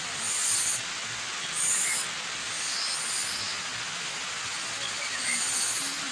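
Steady rush of a waterfall, with a bird calling over it in short high-pitched phrases, four times at roughly one-second gaps.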